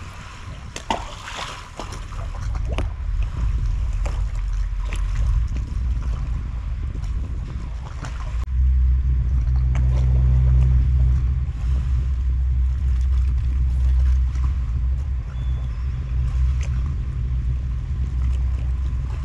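Boat engine running with a steady low hum, which grows louder and fuller about eight seconds in. There are a few light knocks and clicks in the first seconds.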